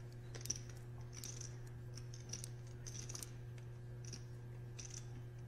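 Faint, scattered clicks of clay poker chips being handled at the table, over a low steady hum.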